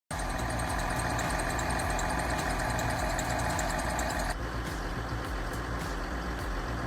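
Heavy machine's engine running with a steady low throb. A louder, higher-pitched noise over it cuts off suddenly about four seconds in.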